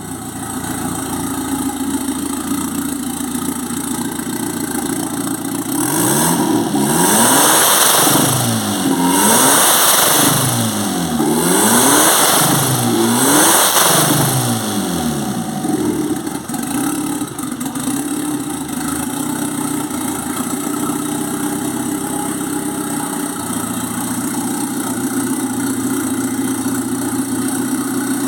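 Turbocharged Fiat 147 engine idling, then revved up and let fall about four times in quick succession around the middle, with a loud turbo hiss on each rev and the turbo flutter as the throttle closes. It settles back to a steady idle.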